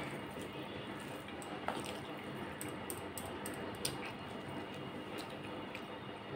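Fingers mixing rice, fish curry and chanachur on a steel plate: soft wet squishing with scattered light clicks.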